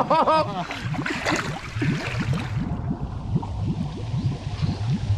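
Water sloshing and gurgling in uneven, low pulses.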